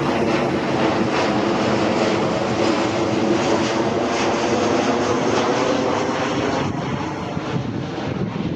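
Airplane flying low overhead, a loud, steady engine drone that begins to fade in the last couple of seconds.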